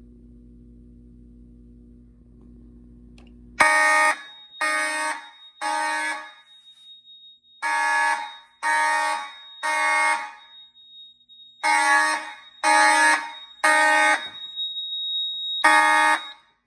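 Federal Signal fire alarm horns go into alarm a few seconds in, after the smoke detector is tripped with a test magnet. They sound the temporal-3 code: three blasts and a pause, three times over, then one more blast before they are silenced near the end. A steady high-pitched beep runs under the horns, and the blasts echo in the unfinished basement.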